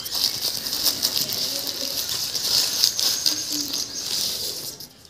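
Thin plastic carrier bag crinkling and rustling as a hand rummages in it and pulls out a packed takeaway box, dying away just before the end.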